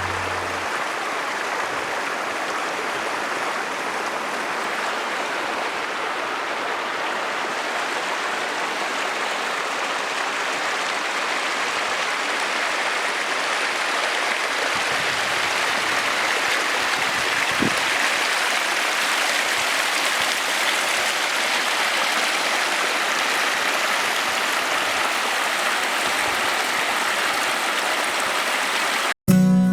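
Steady rushing of flowing water from a mountain stream, an even hiss with no breaks.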